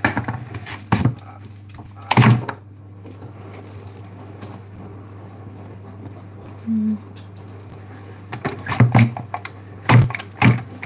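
Knocks and clatter of a knife, utensils and potatoes on a kitchen chopping board while potatoes are peeled, in a burst near the start and again near the end, over a steady low hum. A brief low tone sounds once in the quiet middle.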